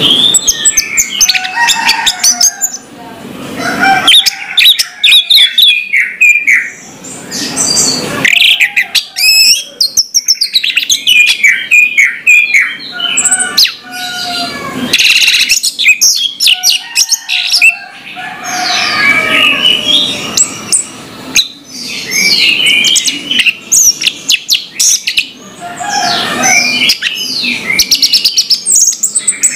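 Orange-headed thrush singing a loud, varied song of whistled phrases, rapid repeated notes and sweeping trills, with short pauses between phrases.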